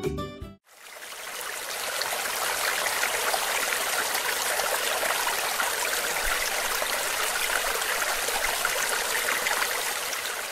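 Rushing mountain stream: a steady hiss of fast-flowing water that fades in just after the music stops and fades out near the end.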